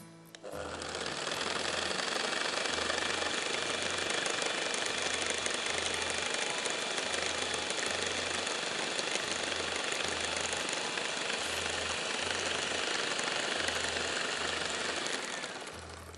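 Electric hand mixer running steadily, its twin beaters whisking a yogurt mixture in a glass bowl. It starts about half a second in and runs down near the end.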